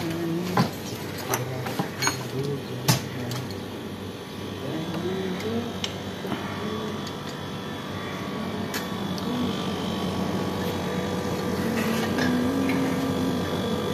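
Electrolux 1.5-ton split AC outdoor unit running with a steady mechanical hum and whine while it is charged with refrigerant. A few sharp clicks come in the first three seconds.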